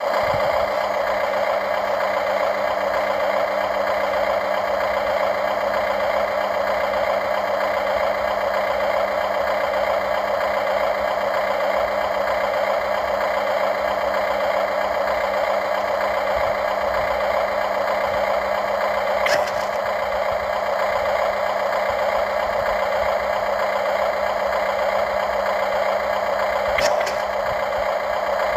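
Radio-controlled model excavator's motor and hydraulic pump running steadily with a constant pitch, with two short clicks, one about two-thirds of the way in and another near the end.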